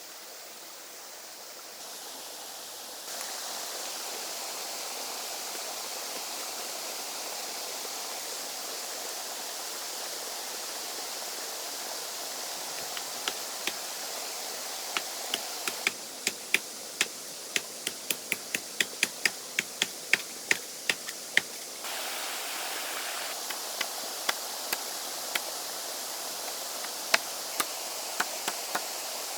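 A steady rushing noise, with a run of sharp knocks in the second half, about two a second. The background changes level abruptly a few times.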